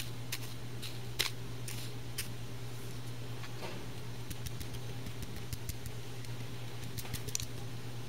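Scattered light clicks and ticks of a clear plastic tray of flake gunpowder being tilted and fingered, the flakes shifting against the plastic, over a steady low hum.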